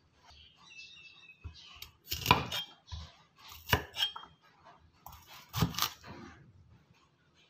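Cleaver chopping a bitter melon on a thick wooden chopping block: three hard knocks of the blade into the wood, spaced about one and a half to two seconds apart, with a lighter knock just after the second.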